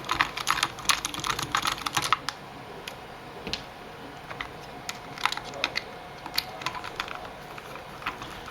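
Small clicks and taps of plastic and metal parts being handled and unscrewed while a Traxxas Stampede RC truck is taken apart, quick and dense for the first two seconds, then scattered single clicks.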